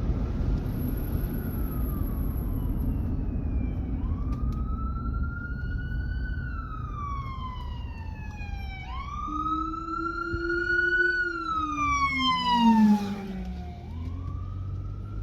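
Emergency vehicle siren wailing, its pitch sweeping slowly up and down in long rises and falls, over a steady low road rumble.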